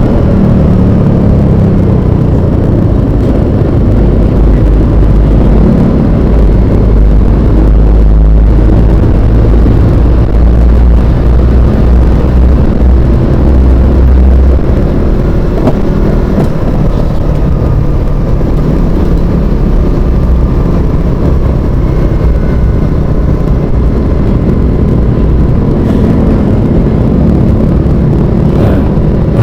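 Continuous, loud road-vehicle and engine noise with a deep rumble, heaviest from about four to fourteen seconds in.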